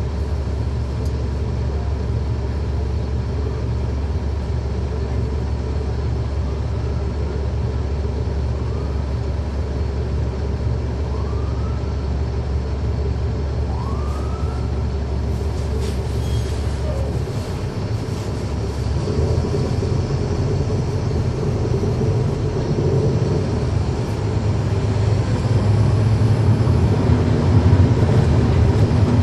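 Caterpillar C13 ACERT diesel engine of a 2009 NABI 40-foot suburban bus, heard from on board, running at a steady idle. About two-thirds of the way through, its note shifts higher and grows steadily louder as the bus gets under way.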